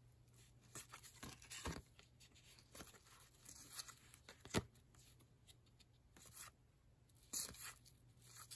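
Faint, scattered rustles and flicks of 1990 Upper Deck baseball cards sliding against each other as a stack is leafed through by hand, with one sharper snap about halfway through.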